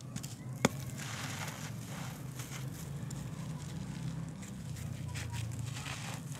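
Dry, dusty lumps of earth crushed and crumbled between bare hands: gritty crunching and crackling, with one sharp crack just under a second in.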